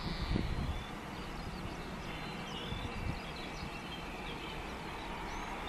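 Birds chirping in quick, short rising and falling calls over a steady hum from a distant taxiing jet. Wind buffets the microphone in the first second.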